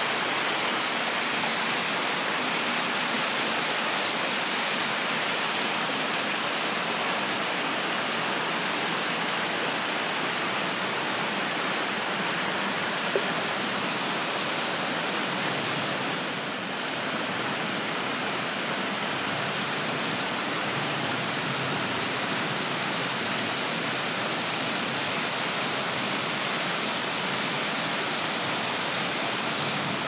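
Steady rushing water, an even hiss with no let-up, and one faint click about thirteen seconds in.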